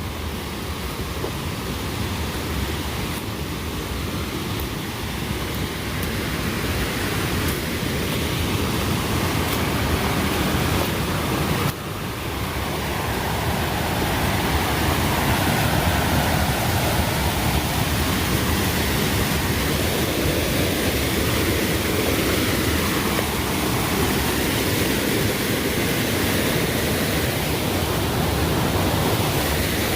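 Mountain stream rushing at a trail water crossing, a steady even noise that grows louder as it is approached, with a brief dip about twelve seconds in.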